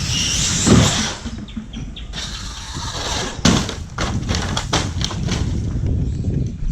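Rough, low rumbling noise with several hard knocks: a loud one about a second in, then sharper ones around three and a half and nearly five seconds in.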